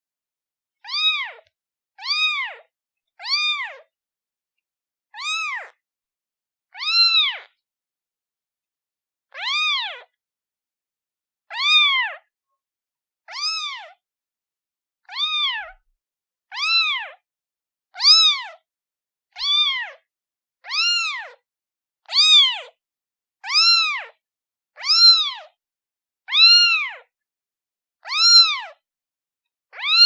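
A kitten meowing over and over: about twenty short, high-pitched meows, each rising and then falling in pitch, one every second or two with silence between.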